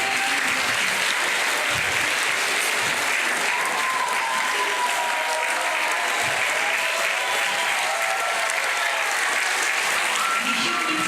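Audience applauding steadily, with a few voices rising over the clapping in the middle.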